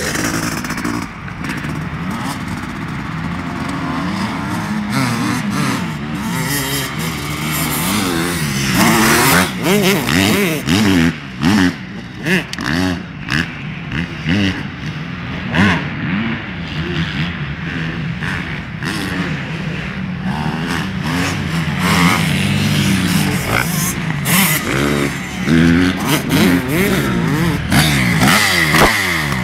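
Dirt bike engines revving up and down as the bikes ride the track, their pitch rising and falling over and over, sometimes two engines at once.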